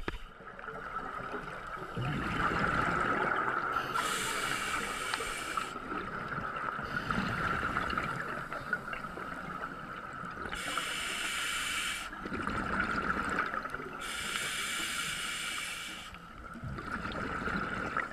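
Scuba breathing through a regulator underwater: hissing inhalations alternate with rumbling, bubbling exhalations, one breath every few seconds.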